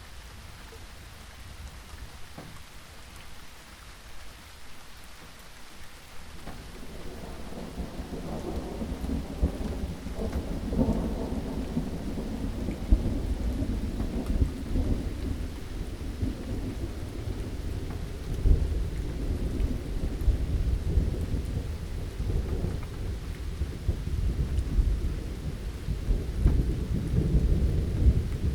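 Steady rain falling, with thunder starting to rumble about a quarter of the way in and building into a long, deep rolling rumble that swells several times.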